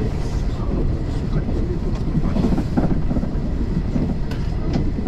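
Running noise of a JR 381 series limited express electric train at speed, heard inside the driver's cab: a steady low rumble of the wheels on the rails, with a few short sharp clicks.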